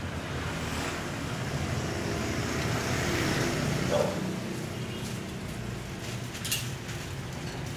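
Steady road traffic noise that swells and fades as a vehicle passes about three seconds in. There is a short clink about six and a half seconds in.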